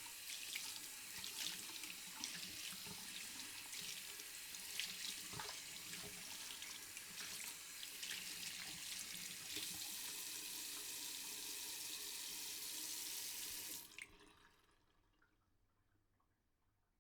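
Tap running into a sink while hands are washed under it, the steady stream broken by many small splashes. The water cuts off sharply about fourteen seconds in and the sound fades away over the last few seconds.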